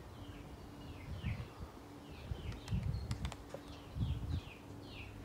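Small wild birds chirping over and over, short high notes that slide downward, a couple each second. A few low rumbles on the microphone around the middle.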